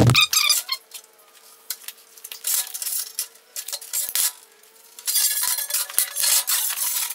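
Metal clinking and scraping in several spells as a long metal bar and a sheet of aluminium tread plate are handled and slid on a metal-topped workbench, with a faint steady hum underneath.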